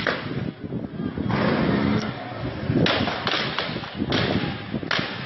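Gunshots: a run of sharp reports at irregular intervals, one at the start and several close together in the second half, over a noisy background.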